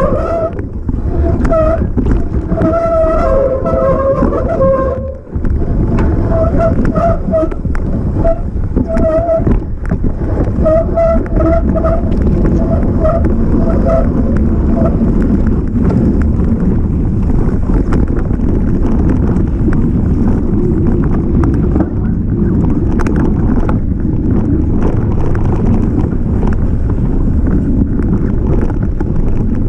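A mountain bike running fast downhill: wind buffeting the microphone and a steady rumble of tyres and frame rattling over rough trail, with many small knocks. Through roughly the first half a wavering pitched whine comes and goes.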